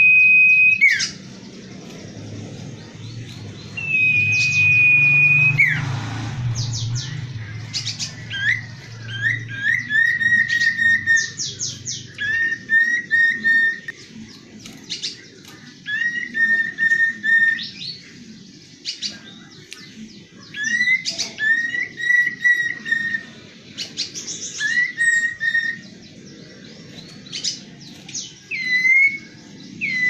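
Common iora (cipoh) singing: a long steady whistled note at the start and another about four seconds in, then phrase after phrase of short repeated whistles, each sliding up at the start, mixed with sharp high chirps.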